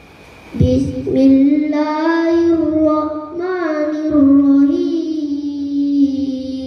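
A boy reciting the Qur'an in melodic tilawah style through a microphone: one long chanted phrase with wavering pitch turns, starting about half a second in.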